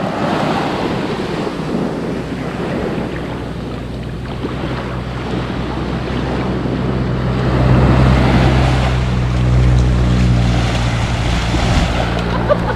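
Small sea waves washing up and running back over a sandy beach, with wind buffeting the microphone. About halfway through a steady low hum comes in and grows louder, becoming the loudest sound.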